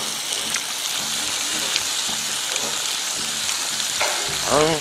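Herb pork belly slices, scallions and garlic sizzling steadily on a hot stone griddle plate, with scattered light crackles. A short hum comes near the end.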